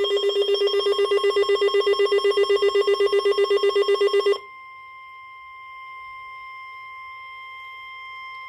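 A weather radio receiver's alert buzzer beeping in fast pulses, about eight a second, over NOAA Weather Radio's steady warning alarm tone. The pulsing stops about four seconds in, leaving the steady tone alone at a lower level. The tone signals an incoming alert, here a tornado watch.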